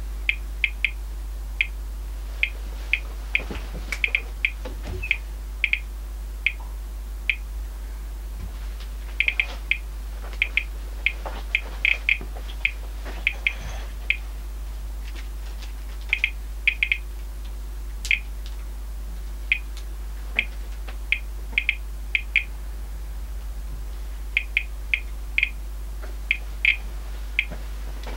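Thermo Scientific RadEye G-10 gamma survey meter chirping its audible count signal: short high-pitched beeps at random, irregular intervals, about two a second on average with clusters and gaps. Each chirp is a detected gamma pulse, and the rate goes with the display's reading of about 1.5 µSv/h, roughly ten times the 0.15 µSv/h background it showed moments earlier.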